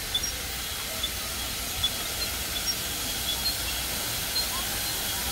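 Steam hissing steadily from Strasburg Rail Road's standing 2-6-0 steam locomotive No. 89, with a few short high chirps over it.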